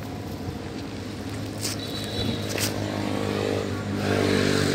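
An engine running steadily with a low hum, getting louder near the end, with a short high squeak about two seconds in.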